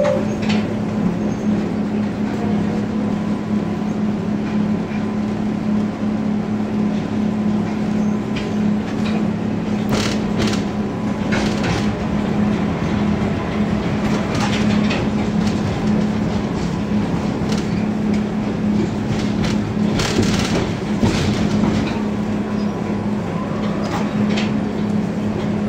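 Tatra T4D tram running on the track with a constant low hum, and sharp clacks of the wheels over rail joints or points, several of them from about ten seconds in.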